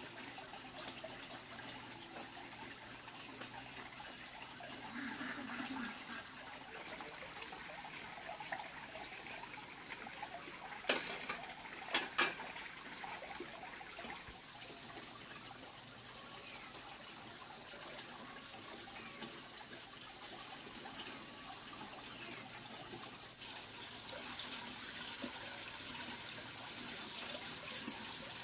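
Hot oil sizzling in a wok as dough cakes deep-fry, a steady hiss that grows a little louder near the end as fresh batter goes in. A few sharp knocks near the middle.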